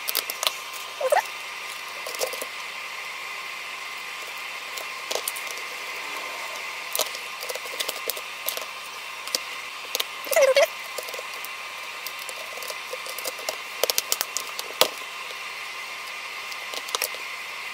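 Scattered clicks and taps of hands and small parts on the plastic underside of a Dell Inspiron Mini 10 netbook as it is reassembled, with a few short squeaks, the loudest about ten seconds in, over a steady background hiss.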